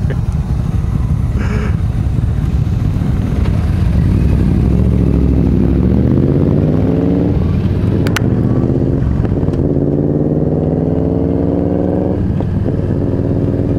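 Yamaha V-Star 1300's V-twin engine accelerating from a stop, its pitch rising through a gear, dropping at an upshift, and rising again, twice over. A single sharp click about eight seconds in.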